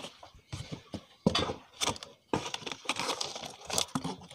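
Clear plastic packaging crinkling and rustling in irregular bursts as a plastic appliance is handled, with a few light clicks and knocks.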